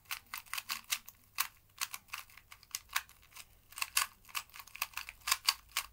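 A 2x2 puzzle cube being turned rapidly by hand, its layers clicking in quick, irregular snaps, several a second.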